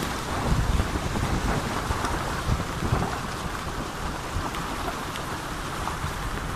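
Floodwater rushing and splashing against the side of a car as it drives through a flooded street, a dense wash of water noise with uneven low rumbles that is loudest in the first three seconds, then steadier.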